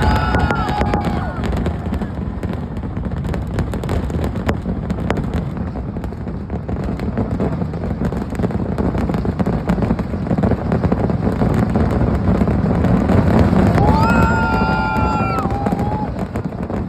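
Massed firecrackers and fireworks going off in a dense, unbroken barrage: a continuous low rumble thick with crackling bangs. A whistling tone rises over it near the start and again near the end.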